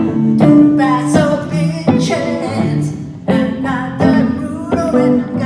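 A woman singing into a microphone while strumming chords on a Les Paul–style electric guitar through an amplifier.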